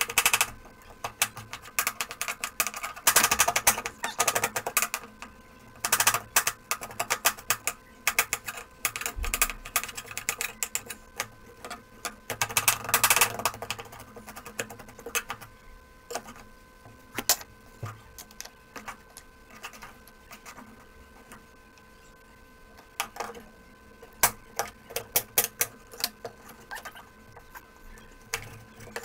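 Large kitchen knife chopping cucumber on a plastic cutting board: sharp, rapid taps in quick runs, fewer and more spaced out in the second half, over a faint steady hum.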